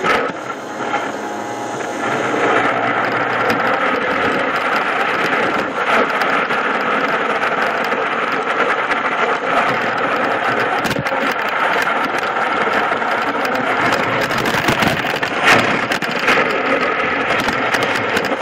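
A FIRST competition robot's electric drive train running hard, close up: motors and gearboxes whirring steadily as the wheels roll over a tile floor, with scattered knocks and a sharper jolt about three quarters of the way through.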